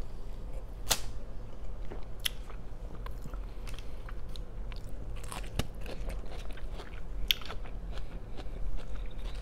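A person biting and chewing crunchy food, with sharp crunches every second or two.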